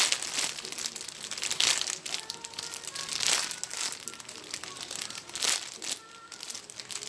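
Clear plastic bag crinkling as the squishy toy inside it is squeezed and turned, in about four louder crinkles a second or two apart, with lighter crackling between them.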